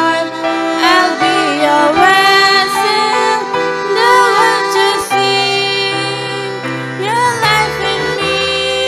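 Woman singing a song with violin and digital piano accompaniment; the piano's bass note changes about seven and a half seconds in.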